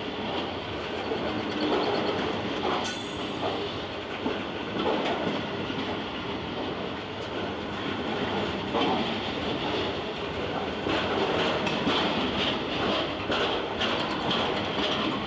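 A long train of bogie coal hopper wagons rolling past at close range, a steady rumble of wheels with irregular clatter as they cross rail joints. A brief high-pitched wheel squeal sounds about three seconds in.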